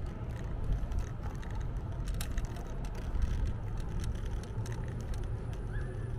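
Electric scooter riding along, a steady low rumble from its wheels with irregular rattling clicks.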